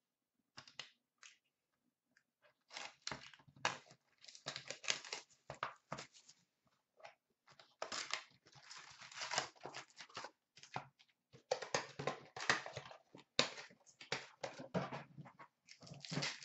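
A sealed hobby box of hockey trading-card packs being opened by hand: wrapping and cardboard tearing and crinkling, with the foil packs rustling as they are taken out. The sounds come in irregular bursts, with one sharp click about two thirds of the way in.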